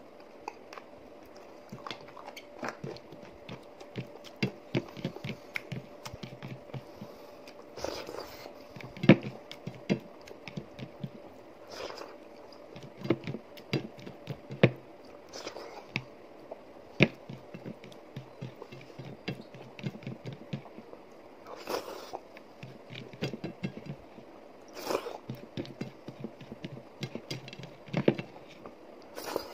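Close-up eating by hand: moist chewing and mouth smacks, with fingers squishing ragi mudde (finger-millet ball) in soup and working it across a paper plate. Many short wet clicks and smacks, a few of them louder, over a faint steady hum.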